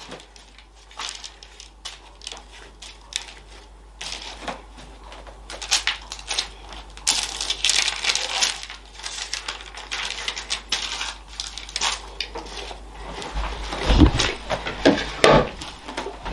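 Baking paper crackling and rustling in irregular clicks as hands press and patch the dough crust of a kalakukko lying on it, with a dull thump near the end.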